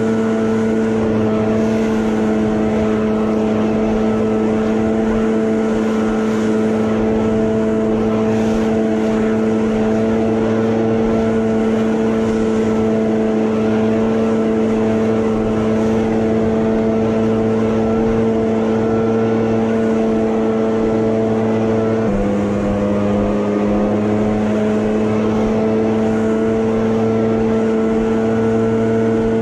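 Leaf blower running steadily at high speed, blowing edging debris and grass clippings off concrete sidewalk and driveway. About 22 seconds in, its pitch drops briefly, then climbs back.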